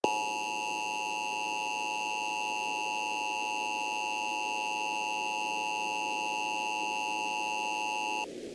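Emergency Alert System attention signal: the steady two-tone alert sounding for about eight seconds over a faint hiss, then cutting off suddenly. It marks the start of an emergency broadcast message.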